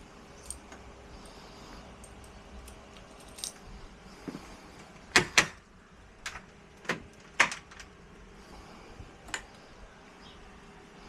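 Clicks and clinks of metal door-lock hardware being handled. A quick double click about five seconds in is the loudest, followed by a few spaced single clicks.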